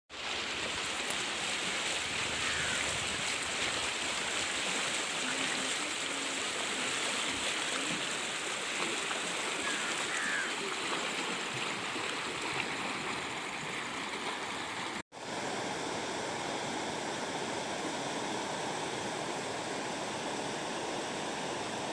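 A river's water rushing, a steady noise. It drops out for an instant about 15 seconds in and picks up again with a slightly different tone.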